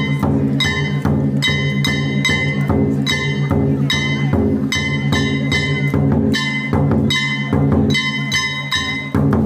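Festival drum music from a Japanese ōdaiko (large barrel drum) beaten in a steady, driving rhythm of about three strikes a second, each strike with a bright metallic ring.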